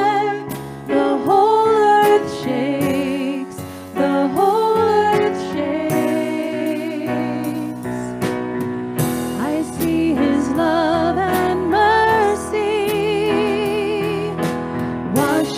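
Live worship song: women's voices singing sustained, wavering notes over an electronic keyboard, with a drum kit's cymbal and drum hits behind.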